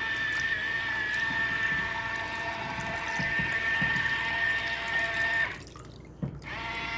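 Portable washing machine running: a steady motor whine with water sloshing and an occasional low knock. The motor stops for about a second near the end, then starts again.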